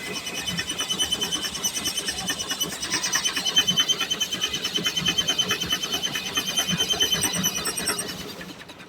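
Steam-powered sawmill machinery running with a fast, regular mechanical beat and a steady high whine, dropping in level near the end.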